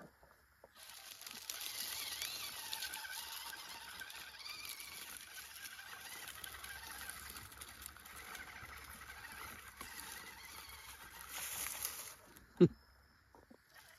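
Axial SCX24 1/24-scale RC crawler driving up a dirt bank. Its small electric drivetrain whines faintly, with a wavering pitch, and its tyres scrabble through dry leaves and dirt. A single sharp knock comes near the end.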